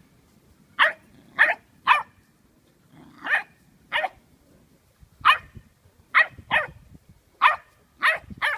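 A dog barking: about a dozen short, sharp barks at irregular intervals, some in quick pairs.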